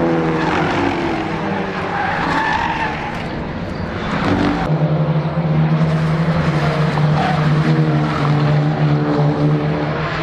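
A pack of touring race cars running through a corner, several engines revving up and down over each other. About halfway through the sound changes abruptly, and then a steady engine drone dominates.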